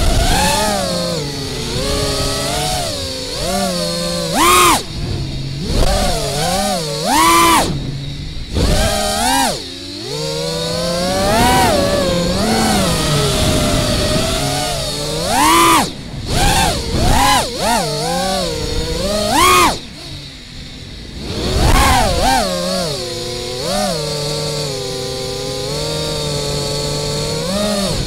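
Brushless motors and propellers of an FPV quadcopter with 2207 Butterflight motors, whining with a pitch that jumps up and down sharply as the throttle is punched and chopped. The sound drops to a lower, quieter hum for a moment about ten seconds in and again around twenty seconds.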